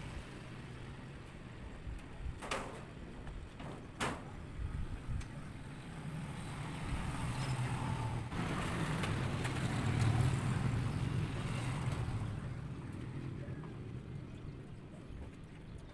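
A motor vehicle passing on the road: a low engine rumble that swells to a peak about ten seconds in and then fades. Two sharp knocks come a few seconds in.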